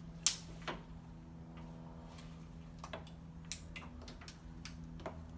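Sharp plastic clicks of ignition coil connectors being plugged back in on a Nissan VQ30 V6, the loudest just after the start with a second shortly after, then several lighter clicks and taps. A steady low hum runs underneath.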